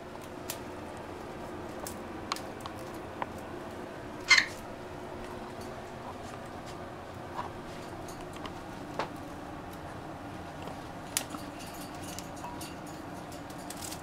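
Pet cockatiels and a conure giving short, sharp chirps and squawks, one loud squawk about four seconds in and several fainter single calls scattered after it, over a steady room hum.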